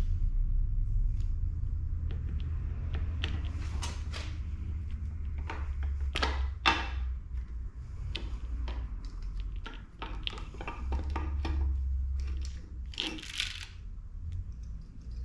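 Metal tools and engine parts clinking and clattering in irregular short knocks as a Honda K20 short block is taken apart by hand, over a steady low hum.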